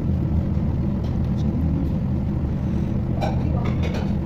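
Steady low rumble, with a few light clicks and taps about three seconds in.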